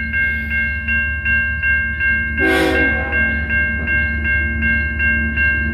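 Safetran Type 3 electronic crossing bell ringing steadily at about three dings a second, a signal that a train is approaching the crossing. A brief, louder burst about halfway through stands out over the dinging.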